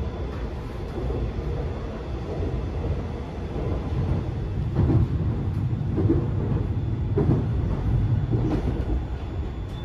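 Seoul Subway Line 4 electric train running between stations, heard from inside the car: a steady low rumble of wheels and running gear, with a short knock roughly every second and a quarter from about five seconds in.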